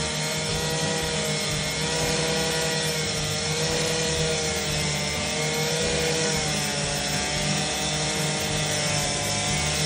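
Two-stroke cut-off saw on a wheeled cart running steadily at full speed as it saw-cuts asphalt, its engine pitch wavering slightly under the load of the cut.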